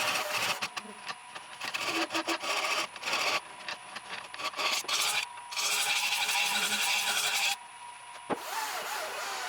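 Turning tool cutting into a spinning green sycamore bowl on a wood lathe, hollowing the inside in repeated passes: a hissing, scraping cut that starts and stops several times, with the lathe's faint steady whine beneath.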